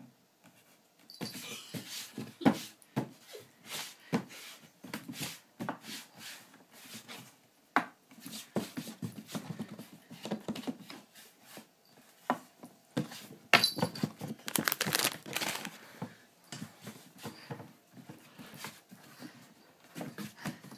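A hand sliding, patting and scraping across a wooden tabletop while a cat scrabbles and bats at it, an irregular run of scuffs, taps and scratches that starts about a second in and grows busiest in the middle.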